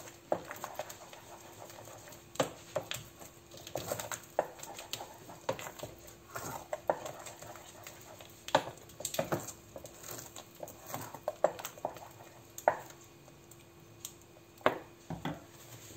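Wooden spoon stirring thick croquette béchamel in a stainless steel pot: irregular knocks, taps and scrapes of the spoon against the pot as the heavy sauce is worked, over a faint steady hum.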